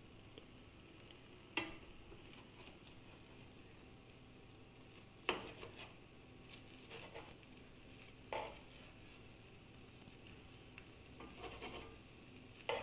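A metal spoon cutting through a set egg layer in a non-stick frying pan: a few faint scrapes and clicks of the spoon against the pan base, spaced several seconds apart, with smaller taps between.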